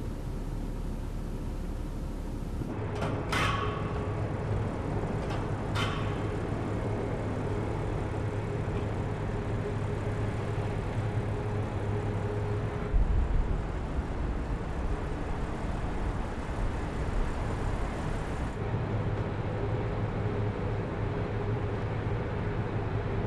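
Audi car moving slowly with a steady low engine hum. Two brief sharp sounds come about three and six seconds in, and a short thump about halfway.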